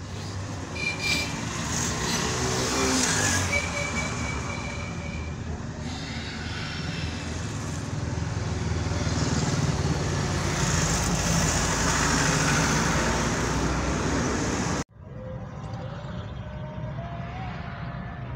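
Traffic and engine noise heard from inside a moving vehicle on a busy street, with motorcycles and cars passing close by and two brief high steady tones early on. About fifteen seconds in, the sound cuts abruptly to a quieter vehicle hum whose pitch slowly rises.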